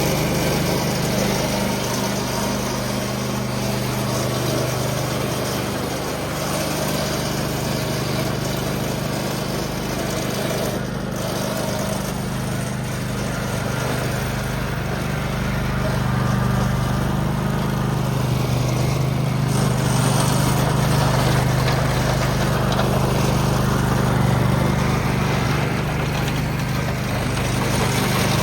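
Ariens EZR 1648 riding mower's engine running steadily, its pitch shifting slightly now and then.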